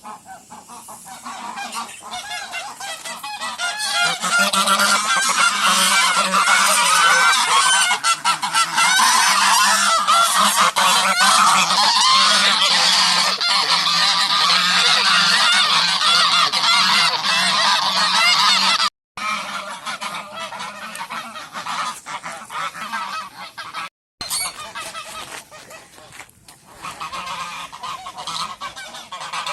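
A flock of geese honking, many calls overlapping. The calls build up over the first few seconds and stay dense, then break off briefly about two-thirds through and go on thinner and quieter.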